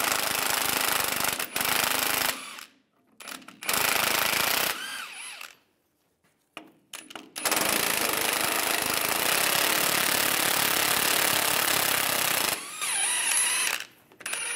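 Impact wrench hammering on a 15 mm socket, driving out two rusty suspension bolts. It runs in three spells: two short ones, then one of about five seconds.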